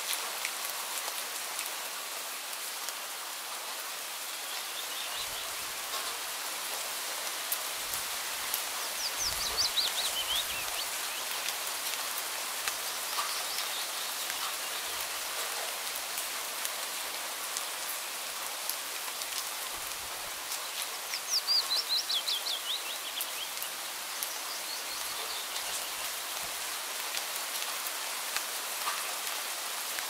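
Steady gentle rain falling and dripping. A bird twice gives a quick trill of rapid notes falling in pitch, about nine seconds in and again about twenty-one seconds in, with a few fainter chirps between.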